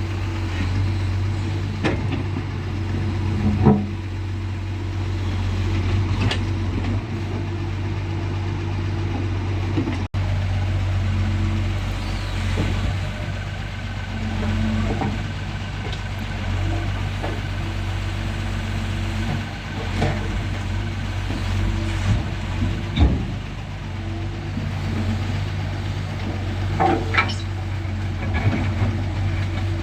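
Doosan DX140 excavator's diesel engine running steadily, with several sharp knocks and clatters while it loads soil into a dump truck.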